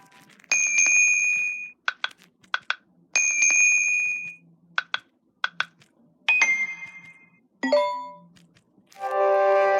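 Samsung Galaxy S9 notification sounds previewed one after another: five short electronic chimes and tones in turn, with light clicks between them.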